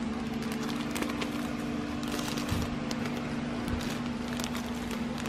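Plastic-wrapped packs of braiding hair crinkling and clicking as they are handled on the rack, over a steady low hum.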